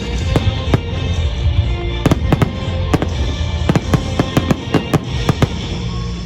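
Fireworks salute of aerial shells bursting: sharp bangs come irregularly, sometimes several a second, over a continuous low rumble, with music playing alongside.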